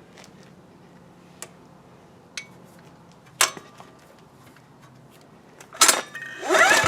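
A few light clicks and knocks, then near the end a sharp clack followed by a hard recoil-starter pull. The ETQ DG7250LE generator's single-cylinder diesel whirs over with a quickly rising pitch.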